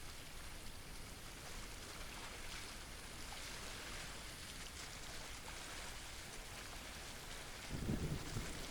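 Steady hiss of water noise, with a short low rumbling thump about eight seconds in.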